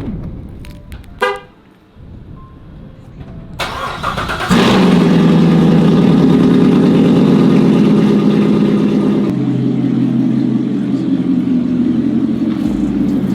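A short car horn chirp, then a car engine starting a few seconds later and running loud and steady, settling slightly lower about two thirds of the way through.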